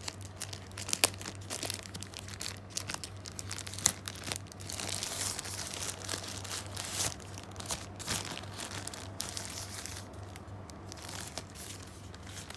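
Packaging crinkling and crackling as a camera is unwrapped from its box, with irregular sharp snaps, the loudest about a second in and about four seconds in, over a steady low hum.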